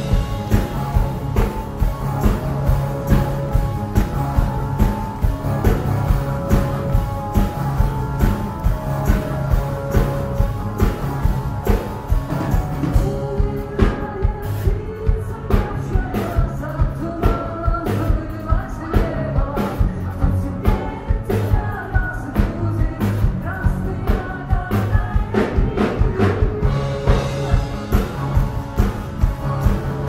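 A rock band playing live, with a steady drumbeat and a singer's voice carrying the melody.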